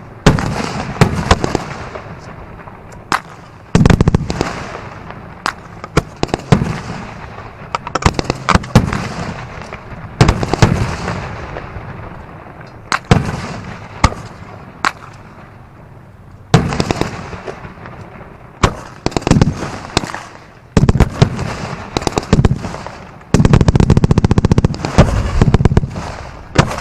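Pyrotechnic explosions: clusters of loud, sharp bangs every few seconds with crackling in between, and a dense rapid run of bangs near the end.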